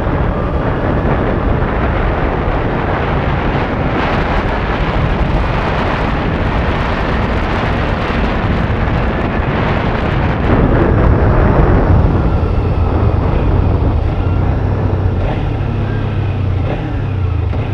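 Kawasaki Ninja 300 on the move: wind rushing over the microphone, with the bike's parallel-twin engine running steadily underneath. About two-thirds of the way through, the wind noise eases and the engine's low, steady drone stands out more plainly.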